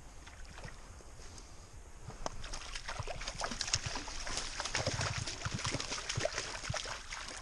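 A hooked brook trout thrashing and splashing at the surface of a creek pool as it is played in and netted. The splashing starts about two seconds in and keeps up as a dense run of quick splashes.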